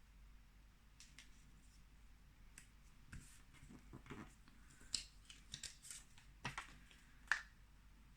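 Faint paper handling: post-it notes and paper rustling, with scattered small clicks that come more often in the second half.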